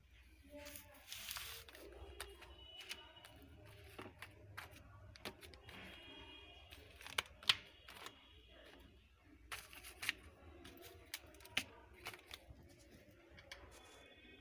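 Stacked plastic PVC ID cards handled by hand: scattered light clicks and rustles as the cards tap and slide against each other, with a sharper click about seven and a half seconds in.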